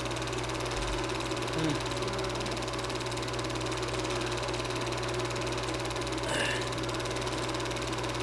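Super 8 film projector running: a steady mechanical whir with a constant low hum.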